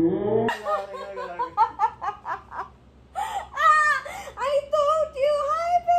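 Women laughing hard: a quick run of short laughs, then higher, drawn-out squealing laughter in the second half.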